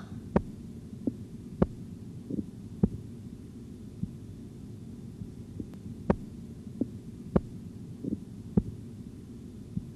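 Recorded Korotkoff sounds heard through a stethoscope as the blood-pressure cuff deflates toward diastolic pressure: short knocks about once a second, some loud and some faint, over a steady low hum. The last regular knock marks the diastolic pressure.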